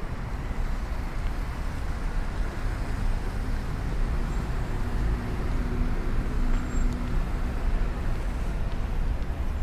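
Steady city traffic noise from a busy road beside a sidewalk, with a low engine hum from one vehicle standing out for a few seconds midway.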